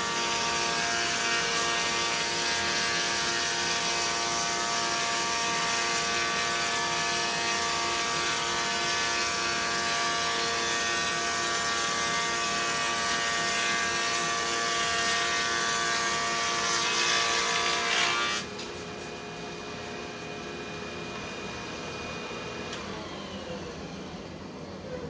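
Wood molder running steadily as it cuts a board into trim molding. The motor tone and cutting noise stop abruptly about eighteen seconds in, leaving a much quieter background.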